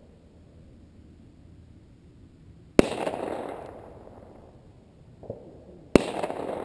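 Two dry-ice bombs in plastic 2-liter bottles bursting with loud bangs about three seconds apart, each trailing off over about a second.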